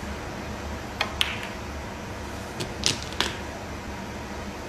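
Snooker balls clicking on the table: several sharp knocks of cue tip on cue ball and ball striking ball, two close together about a second in and another cluster about three seconds in, over a steady low arena hum.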